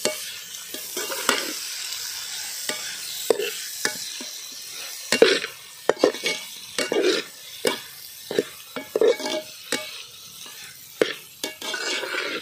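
Chopped goat intestine (boti) frying with onion and tomato in a large metal pot, sizzling, while a perforated metal ladle stirs it in repeated, irregular scraping strokes against the pot.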